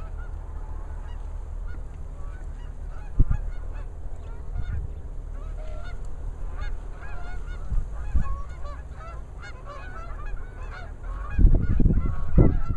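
A flock of geese honking, many short calls overlapping as the birds circle in to land. Near the end, louder low rumbling rises over the calls.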